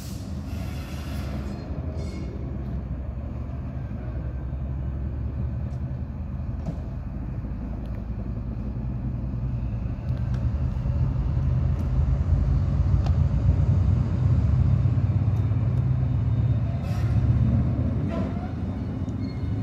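A pair of Class 68 diesel locomotives running at low speed, their Caterpillar V16 engines giving a steady low rumble that grows louder from about halfway through as they approach.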